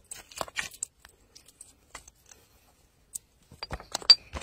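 Short rustles, crunches and clicks of a freshly caught fish being handled and lifted over a basket of fishing line: a few about half a second in, then a denser cluster near the end with one sharp click.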